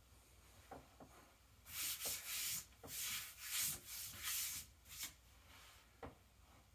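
A hand rubbing back and forth across a waxed olive Ponte Wax leather hide: about six or seven quick swishing strokes over some three seconds, starting about two seconds in, with a few soft knocks before and after.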